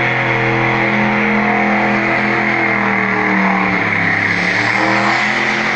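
Turbocharged 5.3-litre V8 of a 1985 GMC pickup running hard at a steady, held pitch, with a strong hiss over the engine note; the pitch wavers slightly around the middle.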